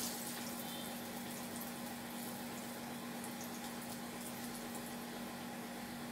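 Potato patties shallow-frying in hot oil in a nonstick pan: a steady soft sizzle, with a steady low hum underneath.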